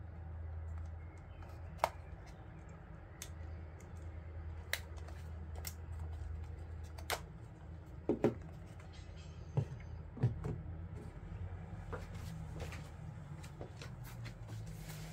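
Handling sounds: scattered small clicks and light knocks of things being picked up and set down, with a few sharper knocks around the middle, over a steady low hum.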